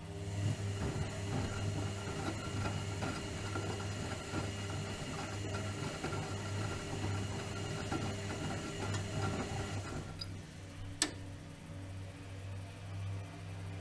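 Bauknecht WAK 5750 G front-loading washing machine running, its motor turning the drum for about ten seconds and then stopping, over a steady low hum; one sharp click comes about a second after it stops. The motor runs on newly fitted carbon brushes.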